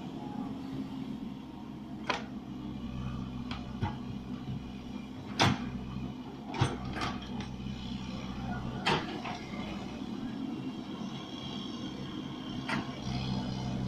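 Excavator's diesel engine running steadily, with a series of sharp knocks and clanks from the digging gear, about eight spread irregularly, the loudest around the middle.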